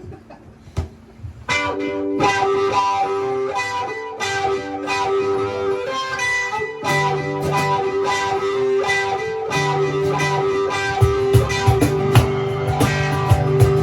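Electric guitar starts playing about a second and a half in, holding and repeating sustained notes. Lower notes join later, with heavier, sharper low hits near the end.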